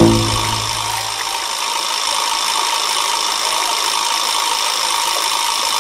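Fountain water jets spraying and their pumps running: a steady hiss with a faint hum. A low music note dies away about a second in.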